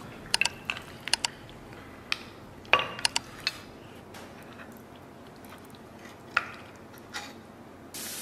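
Scattered short, sharp clicks and wet, sticky smacks from saucy braised beef ribs being handled on a plate, irregular and a second or so apart, with a steady hiss starting near the end.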